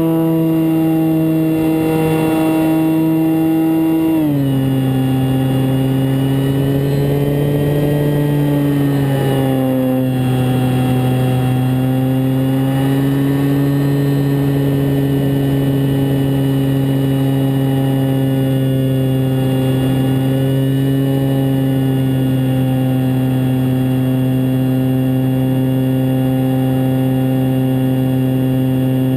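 Multiplex Mentor RC plane's electric motor and propeller in flight, heard from the airframe as a steady hum. The pitch drops sharply about four seconds in as the motor slows, rises and falls a little a few seconds later, then holds steady.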